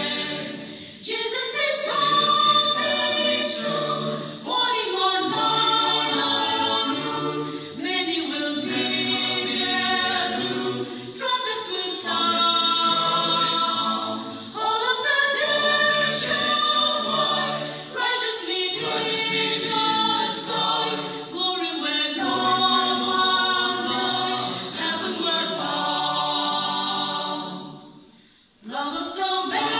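Mixed choir of men and women singing a cappella, phrase after phrase, with a brief pause near the end.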